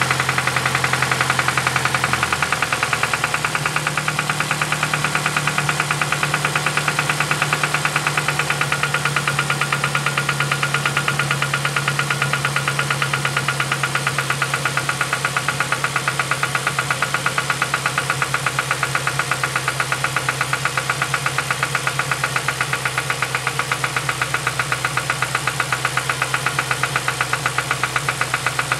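A 2007 Ford Focus ZX4 ST's four-cylinder engine idling with a rapid, regular knock that keeps time with the engine. The owner suspects rod knock.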